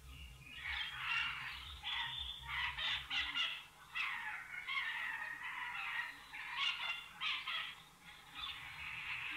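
Harsh animal calls, repeated in irregular bursts, over a low hum in the first few seconds.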